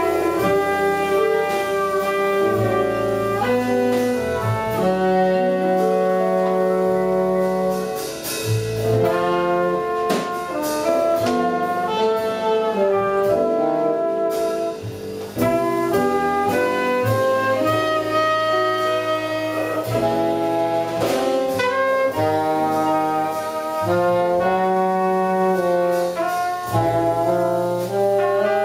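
Jazz quintet playing live: trumpet and saxophone playing sustained melody notes over piano, double bass and drums with cymbal strokes.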